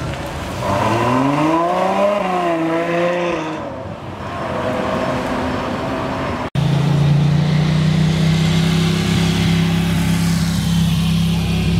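A Ferrari's engine revving as the car pulls away, its pitch climbing and wavering over the first few seconds. After a cut about six and a half seconds in, a C7 Chevrolet Corvette's V8 rumbles steadily at low revs as it rolls out.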